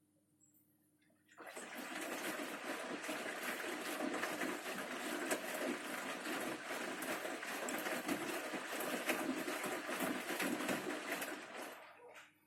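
Bosch Series 6 front-loading washing machine in its main wash: water rushing and swishing in the drum for about ten seconds, starting abruptly a second and a half in and fading out near the end.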